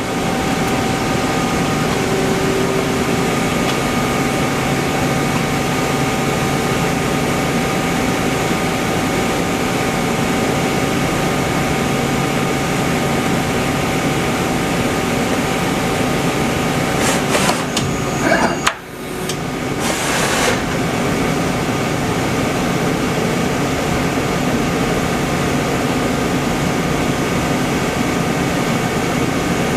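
Mazak Quick Turn Nexus 400 II CNC lathe running: a steady machine hum with several high whining tones. About two-thirds of the way through it is broken by brief clatter, a sudden dip and a short burst of hiss.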